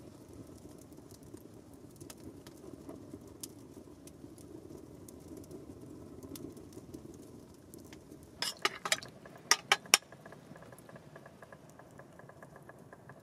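Small wood campfire crackling, a low steady hiss with scattered small pops. A few seconds before the end comes a short run of louder, sharper pops or knocks, then only the faint crackle again.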